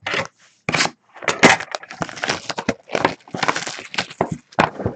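Crinkling, crackling and tearing of plastic shrink wrap and packaging as a sealed box of Bowman Chrome football cards is unwrapped by hand. It comes in irregular bursts, with short gaps in the first second, then runs almost continuously.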